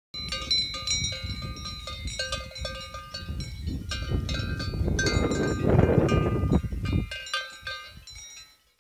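Livestock bells on grazing cattle and horses clanking irregularly, many bells ringing at different pitches and overlapping. Under them a low rumble swells to its loudest around six seconds in and fades out about a second later.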